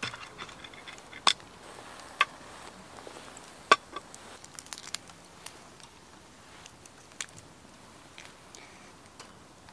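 Wood fire crackling, with a handful of sharp pops, the loudest about four seconds in. The fire is burning homemade firewood that was not dried properly.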